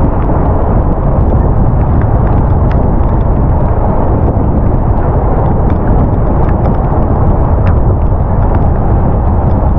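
Heavy wind rumble buffeting the microphone while riding downhill in the rain, with a few faint ticks scattered through it.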